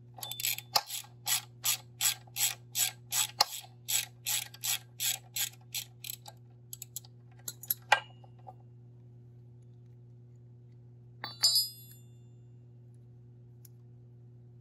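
A socket ratchet working a 17 mm bolt loose on a motorcycle's foot peg bracket: its pawl clicks in an even rhythm of about three strokes a second for some six seconds, then slows and stops. About two seconds later comes a short ringing metallic clink. A steady low hum runs underneath.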